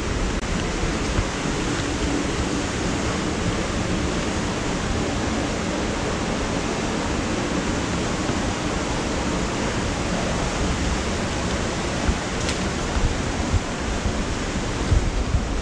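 Steady, loud rush of a river flowing below, an even hiss of moving water, with one sharp click about twelve seconds in.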